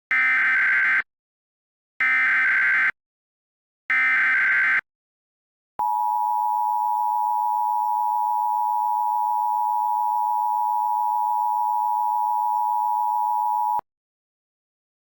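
Emergency Alert System alert start: three short bursts of warbling SAME header data tones, each about a second long and two seconds apart, then from about six seconds in the two-tone EAS attention signal held steadily for about eight seconds before cutting off abruptly.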